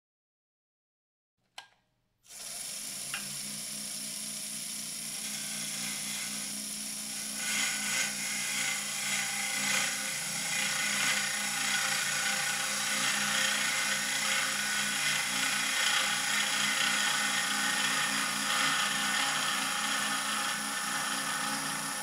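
Wood lathe started with a click about two seconds in, its motor then running with a steady hum. From about seven seconds in, a turning tool cuts the spinning laburnum blank with a rough, uneven scraping hiss that grows louder.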